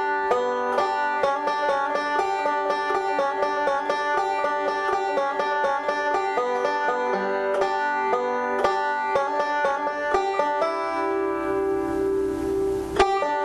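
Five-string banjo fingerpicked in quick, even rolls. The run of notes stops about eleven seconds in, and the last notes ring on until they are cut off near the end.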